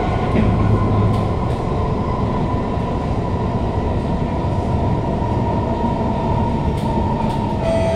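Kawasaki Heavy Industries C151 metro train with GTO-VVVF traction, running at speed, heard from inside the car: a steady rumble of wheels on rail with a steady motor whine above it, and no flat-wheel thumping. Near the end a second, lower tone comes in.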